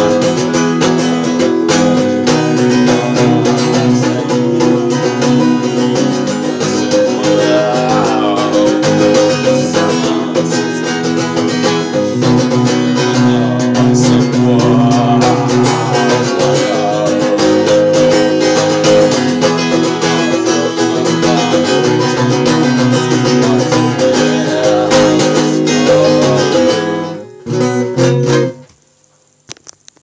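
Guitar strummed steadily in chords while a man sings over it. The playing breaks off near the end, leaving near silence.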